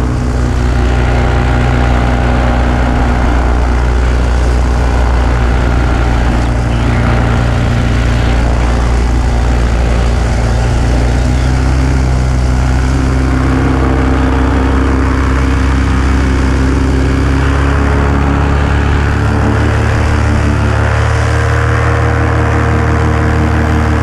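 Small aircraft's engine running steadily in flight, heard from a camera mounted on board; its note shifts slightly about three-quarters of the way through.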